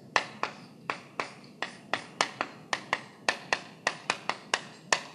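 Chalk tapping against a blackboard as words are written: an irregular run of sharp knocks, about three to four a second.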